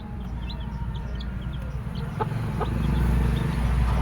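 Three-day-old Aseel chicks peeping: many short, high peeps scattered throughout, over a low rumble that grows louder in the second half.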